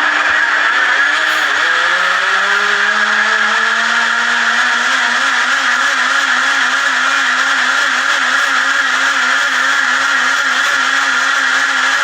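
A small motor running loud and steady. Its pitch dips and then climbs back up over the first few seconds, and it settles into a hum that wavers slightly, over a constant hiss.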